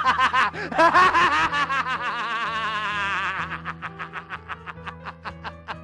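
A man's rapid, rhythmic theatrical laughing over stage-musical backing music, growing quieter toward the end.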